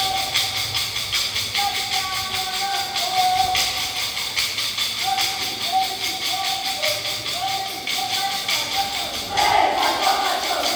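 Kolkali stick dance: wooden sticks clacked together in a quick, steady rhythm under a sung melody. About nine seconds in, the singing grows louder as more voices join.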